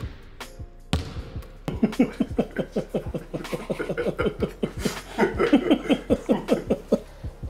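Basketball dribbled rapidly on a hard court floor: a quick, even run of bounces beginning about two seconds in.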